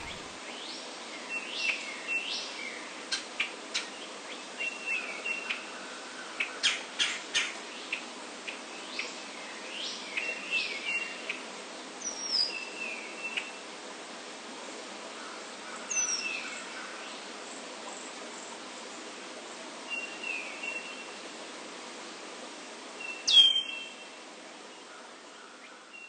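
A songbird singing: short whistled phrases of rising notes, each ending on a brief steady note, repeated every second or two over a faint hiss. A louder, sharper call comes near the end.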